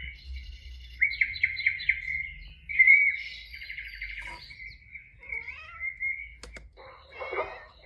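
Birdsong: a run of quick chirps and trills over a thin steady whistle. Near the end a different, lower sound comes in.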